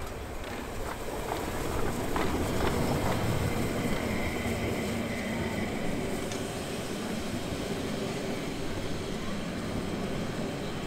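Harz narrow-gauge steam train running past, its carriage wheels clicking over rail joints, with a brief high squeal from the wheels partway through.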